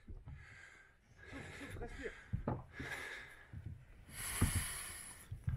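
Heavy breathing close by, with a loud breathy rush about four seconds in, over scattered low thumps.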